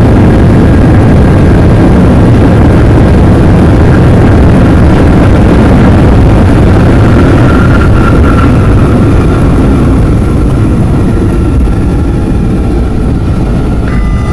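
Loud, steady roar of a Boeing 717 heard from inside the cabin during its landing rollout, easing off gradually about ten seconds in as the airliner slows on the runway.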